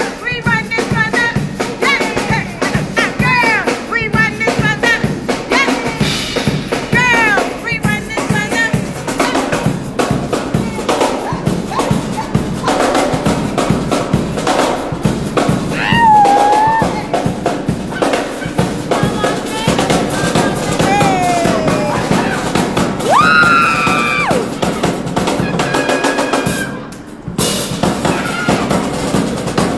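A busker's drum kit played continuously, with people whooping and calling out over the drumming. The drumming drops briefly near the end.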